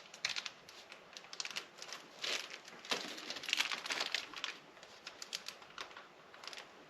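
Quiet, irregular crinkling of plastic packaging with scattered light clicks as the monitor arm's hardware and parts are handled.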